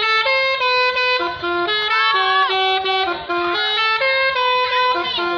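Music: a melody of held notes stepping up and down in pitch, with a few notes sliding, one a couple of seconds in.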